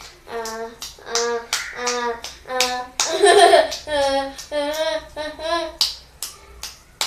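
A child's voice in short, evenly spaced syllables of fairly steady pitch, with a noisier burst about three seconds in, over frequent sharp clicks like finger snaps or taps.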